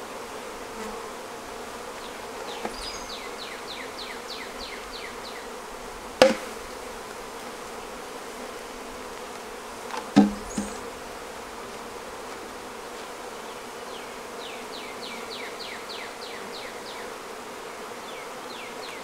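Honeybee colony in an open hive buzzing steadily, still unsettled just after a caged new queen was placed in it. A bird sings quick runs of falling notes over it, and two sharp knocks ring out, near a third of the way in and about halfway.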